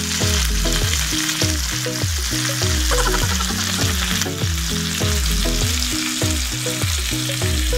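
Chicken sizzling in its own rendered fat in a stainless-steel Saladmaster electric skillet, a steady hiss of frying. Background music with a steady bass beat plays underneath.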